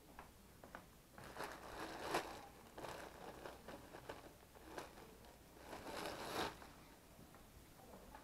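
Crinkling and rustling handling noises in three bursts, about one, three and six seconds in.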